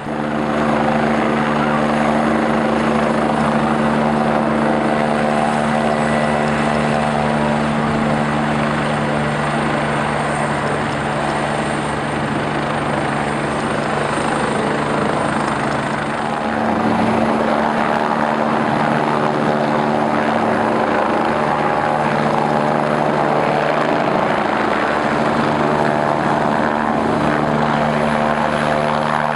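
Helicopter running steadily, its engine and rotor drone holding one pitch. It dips slightly in loudness and picks up again a little past halfway.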